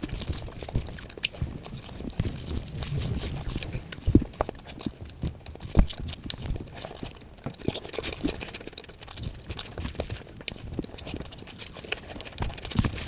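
Close-miked eating sounds: irregular wet chewing, mouth smacks and clicks of someone eating curry, with a couple of louder low thumps about 4 and 6 seconds in.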